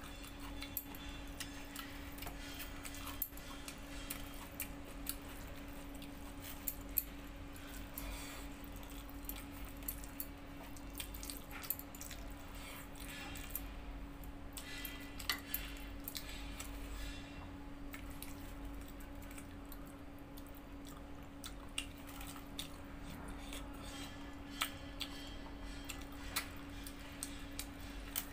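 Eating rice and curry by hand from a steel plate: small scattered clicks and clinks of fingers and bangles against the plate as the food is mixed and scooped, with some chewing, over a steady hum.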